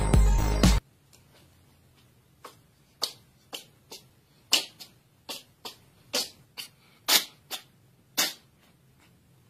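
A domestic cat sneezing and snorting: a run of short, sharp sneezes and snorts from about two and a half seconds in, ending in a big sneeze about eight seconds in. Background music plays at the very start and cuts off within the first second.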